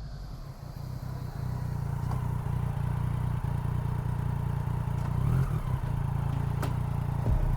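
Yamaha Niken GT's three-cylinder engine running through an Akrapovic exhaust that keeps its catalytic converter, recorded from a microphone on the bike; a steady low exhaust note that grows louder about a second in and is not very loud for an aftermarket pipe.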